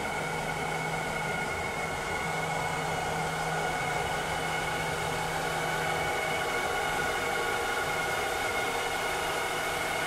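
Vileda robotic vacuum cleaner running: a steady motor whir and suction hiss with a low hum that briefly drops out and returns.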